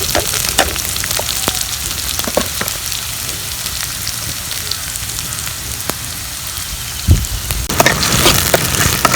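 Mustard seeds popping and sizzling in hot ghee in a kadai: scattered sharp crackles over a steady hiss. About seven seconds in there is a thud, and then the sizzle turns louder and denser as onions go into the ghee.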